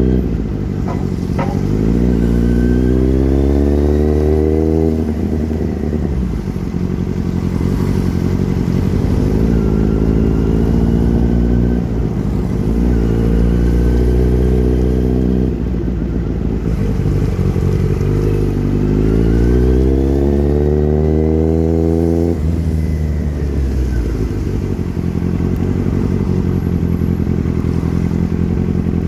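Kawasaki Z900's inline-four engine running under way, pulling hard twice with its note rising and then dropping sharply at a gear change, with steadier running in between.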